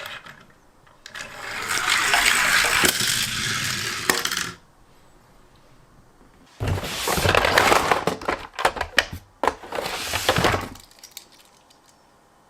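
Toy minicars rattling and rolling on a hard track: two long runs of clattering, rolling noise, the second broken up by many sharp clicks.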